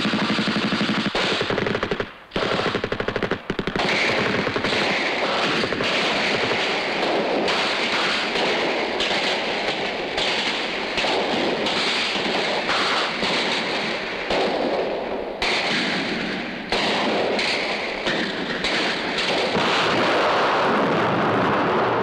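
Rapid, dense rattling like machine-gun fire in a musique concrète sound score, with brief breaks about two and three and a half seconds in, then running on as a continuous crackle.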